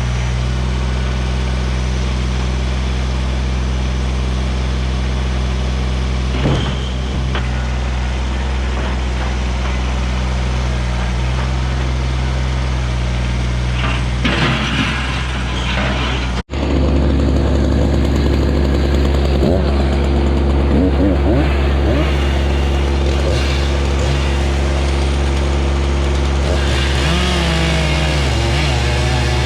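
Kubota BX24 compact tractor's three-cylinder diesel running steadily while it works its front loader on heavy saw logs. It cuts out for an instant just past halfway, and its pitch wavers near the end as the load changes.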